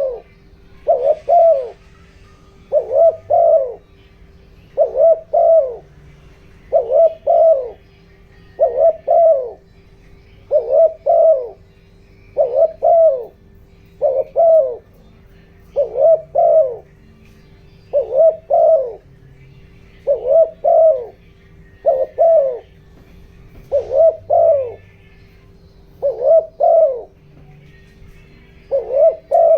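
Spotted dove giving short, quick coos, a phrase of two or three notes repeated about every two seconds. This is a decoy bird's urgent cooing, used to provoke wild spotted doves.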